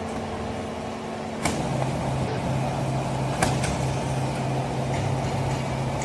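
Hydraulic cardboard baler running with a steady machine hum; about a second and a half in the hum steps up and grows louder with a sharp clank, and a second clank comes a couple of seconds later, as the compressed bale is pushed out through the strapping unit.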